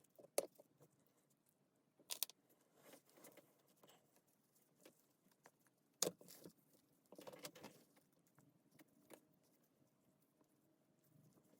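Faint, scattered clicks and light knocks of small parts and tools being handled on a workbench, with the sharpest tap about six seconds in and a short cluster just after seven seconds.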